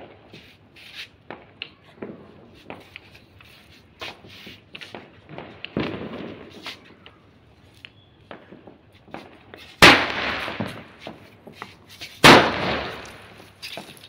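Firecrackers going off: many small, faint pops scattered throughout, then two loud, sudden bangs about two and a half seconds apart near the end, each trailing off over about a second.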